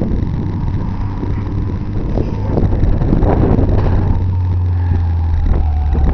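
Toyota Celica GT-Four's engine running as the car drives along the track, its note dropping slightly in pitch in the second half, with wind on the microphone.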